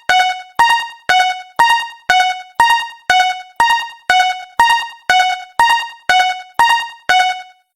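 Japanese railroad crossing warning bell ringing in the familiar two-tone pattern: chime-like strokes about two a second, alternating between a higher and a lower note, each fading quickly. It stops shortly before the end.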